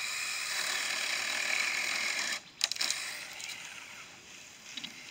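Battery-powered mini chainsaw (Saker, 20-volt) cutting through a green pine limb. It starts abruptly and runs steadily for about two and a half seconds, then stops. A few sharp cracks and a fading rustle follow as the cut limb comes down.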